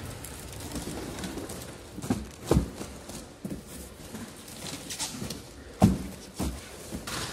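Shrink-wrapped multipacks of plastic drink bottles being lifted and set down on a pallet: several dull thuds, the loudest about six seconds in, with brief crinkles of plastic wrap.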